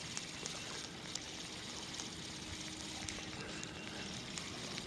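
Faint, steady outdoor noise with a few light ticks scattered through it.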